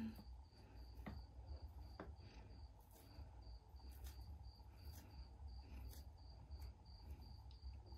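Near silence: room tone with a low hum and a faint, high chirp repeating evenly about two or three times a second, plus a few soft clicks.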